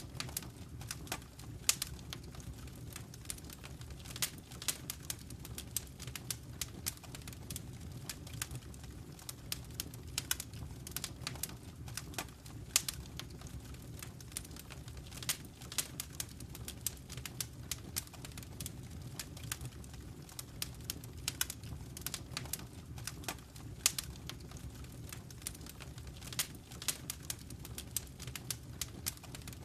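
Wood fire crackling in a fireplace: frequent irregular sharp snaps and pops over a low steady rumble.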